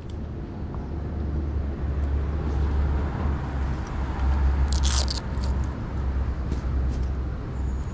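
Hands handling a small FPV cinewhoop drone, a GEPRC Cinelog 35, while fitting its battery and strap: scattered clicks and rustling, with a short scratchy rasp about five seconds in, over a steady low rumble.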